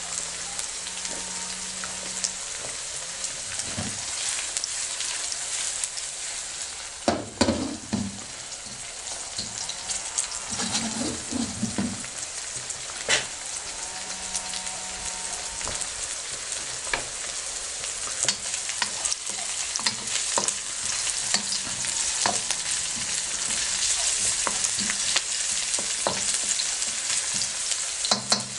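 Sliced onions and garlic sizzling in hot oil in a wok: a steady frying hiss full of small pops and crackles, with a couple of louder knocks about a third of the way in. Near the end a wooden spatula stirs them.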